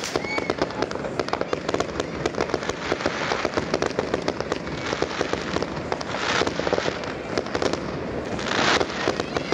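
Many fireworks going off at once: a dense, unbroken rattle of bangs and crackling, swelling twice in the second half into louder hissing bursts.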